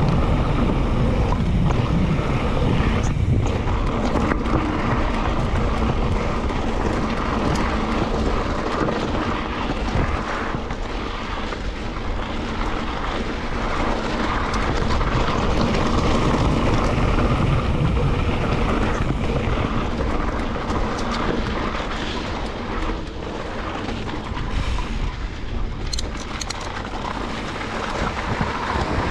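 Wind rushing over the microphone of a moving mountain bike, with a steady low rumble and the tyres rolling on gravel.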